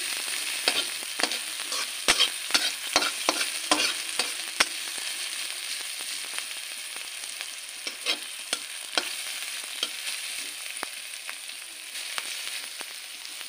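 Chopped onion, green chilli and capsicum sizzling in oil in an iron kadhai, stirred with a metal spatula that scrapes and clicks against the pan. The clicks come thickest in the first few seconds and again about eight seconds in, then thin out over the steady sizzle.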